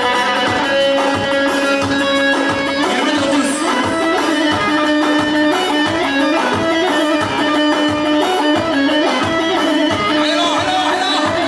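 Dance music played loudly: a plucked string instrument runs a busy melody over a steady beat.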